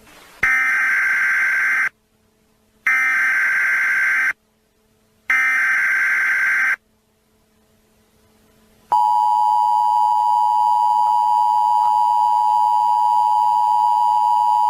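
Emergency Alert System tones: three bursts of the digital SAME header code, each about a second and a half long with short gaps between, then the steady two-tone EAS attention signal, which starts about nine seconds in.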